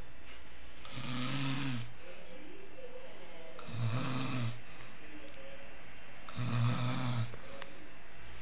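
Snoring of a sleeper taking a nap: three long snores, each just under a second, about two and a half seconds apart.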